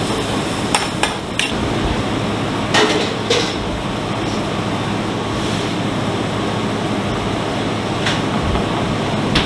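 Metal pans and utensils knocking and clinking on a commercial gas range: a few sharp knocks in the first second and a half, two more about three seconds in and one near the end, over steady kitchen noise.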